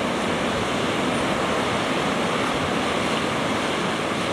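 Sea surf breaking and washing over black volcanic rocks: a steady rush of white water.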